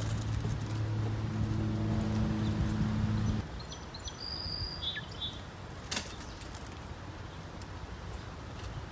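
A steady engine hum that cuts off about three and a half seconds in, followed by quieter outdoor background with a few short bird chirps and one sharp click. A faint high ticking repeats about three times a second throughout.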